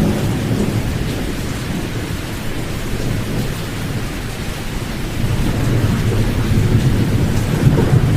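Pink noise sleep track: white noise with the high frequencies filtered out, leaving a deep, rumbling rush heavy in the bass. It grows slightly louder about five seconds in.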